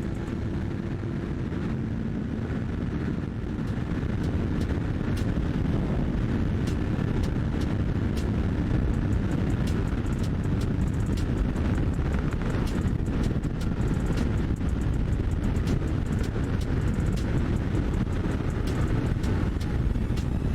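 2021 Yamaha MT-03's parallel-twin engine running while the bike is ridden, getting louder about four seconds in.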